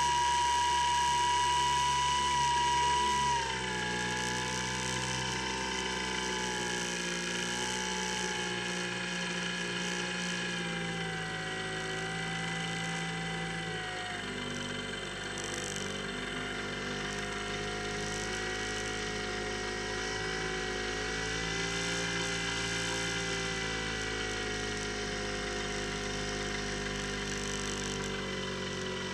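Electric motor and pusher propeller of a Skywalker X7 flying wing running in flight, a steady whine whose pitch drops about three and a half seconds in as the throttle comes back, then wavers slowly up and down.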